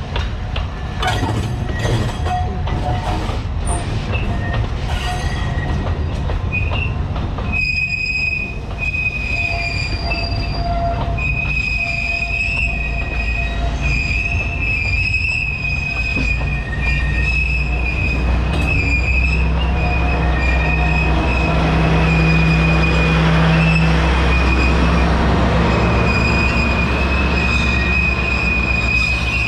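Alishan Forest Railway train's wheels squealing in a high, steady tone on the tight curve of a wye track, with a run of clacks in the first few seconds. The locomotive's low rumble grows louder in the second half.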